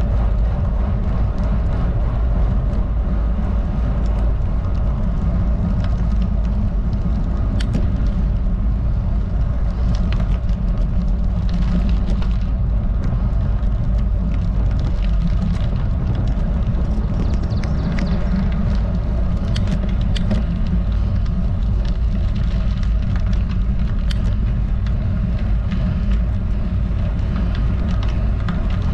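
Steady low rumble of wind buffeting a bike-mounted camera's microphone, mixed with road-bike tyres rolling on rough asphalt, with a few sharp clicks.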